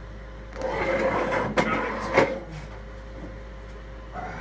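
Rattling and clanking of a powered drain snake's metal cable being pulled out and handled, with two sharp knocks in the middle.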